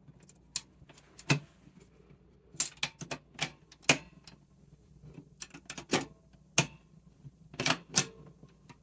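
Irregular sharp metallic clicks and clacks from a Royal typewriter being handled, its side catches and parts pressed and worked while trying to open it. Some clicks come in quick pairs.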